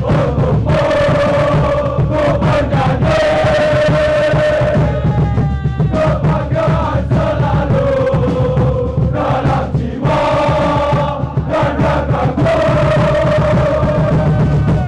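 A large crowd of football ultras singing a chant together, loud and sustained, line after line with short breaks between phrases.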